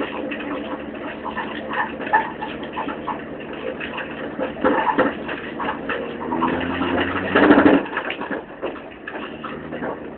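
Sofa dragged on a rope across a stubble field, rattling and knocking continuously over the ground, over the steady engine of the vehicle towing it; a louder stretch comes about seven seconds in.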